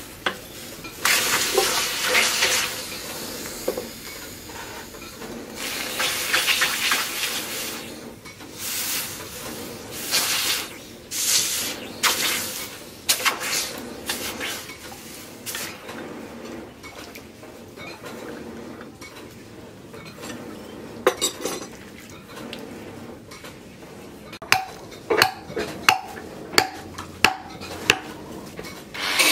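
A hot axe head forged from leaf-spring steel, held in tongs and swished through a trough of water, sizzling and splashing in uneven bursts as the blade is quenched. Near the end come about seven sharp hammer taps on the wooden axe handle.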